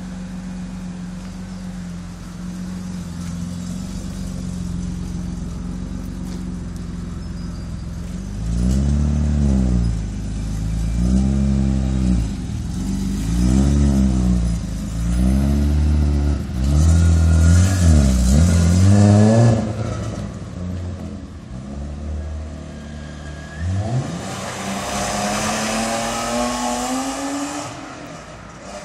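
BMW E36 325i's inline-six running with the catalytic converter removed: it idles steadily, then is blipped about six times, the revs rising and falling each time, before settling back to idle. Near the end an engine pulls away, its pitch rising steadily.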